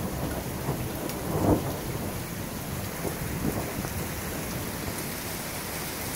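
Thunderstorm: steady rain falling with low rumbles of thunder, one swell about a second and a half in, then easing to a steady rain hiss.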